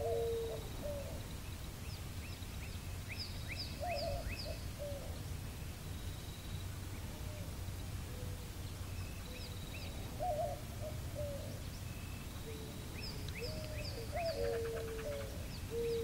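Purple martins calling in bursts of short, sharp chirps, three times over, while another bird keeps up a low, repeated cooing underneath, with a steady low background rumble.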